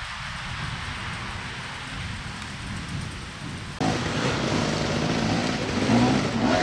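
A steady rushing noise, then, after a sudden jump in loudness about four seconds in, an enduro dirt bike's engine revving, its note rising and falling as the bike climbs over rocks.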